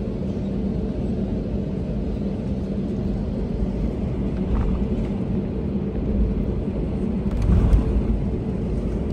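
Cabin noise of an Airbus A320-family jet airliner taxiing after landing: a steady low rumble of the engines at idle and the wheels rolling over the taxiway, with a faint steady hum. A brief bump about four and a half seconds in, and a louder one about seven and a half seconds in.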